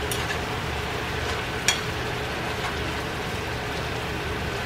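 Diced chicken sizzling steadily in butter in a frying pan over medium-high heat, with a fork tapping the pan twice as the pieces are tossed, over a low hum.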